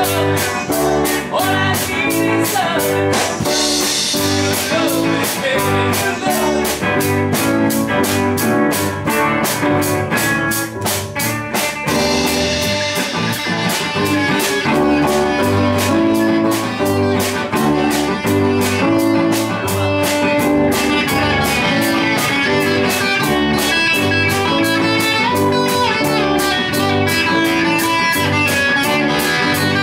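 Live band playing a song in rehearsal: electric guitar and drum kit with a steady cymbal beat. A man sings into the microphone at the start; later there is a stretch without singing.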